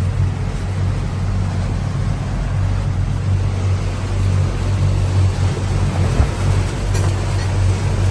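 Boat engine running steadily under load, a constant low drone, which the owner thinks is working too hard in the rough conditions.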